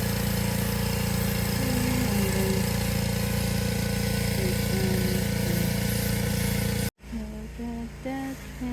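An engine running steadily with a low pulsing hum, with faint voices over it; it cuts off abruptly about seven seconds in, and a quieter voice follows.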